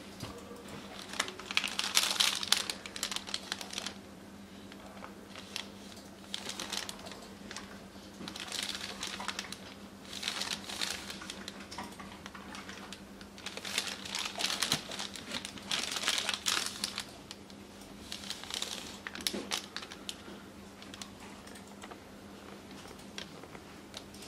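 Paper-and-plastic-film sterile peel pouches crinkling and rustling as they are handled, in several separate bursts with short pauses between, over a faint steady hum.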